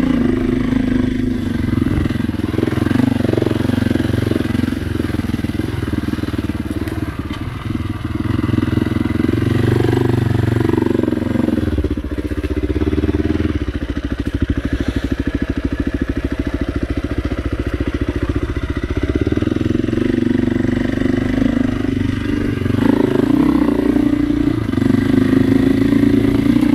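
KTM dirt bike's single-cylinder engine with an FMF exhaust, running at low to moderate revs and rising and falling with the throttle. For several seconds in the middle it drops to a slow, low-rev chug in which the separate firing pulses can be heard.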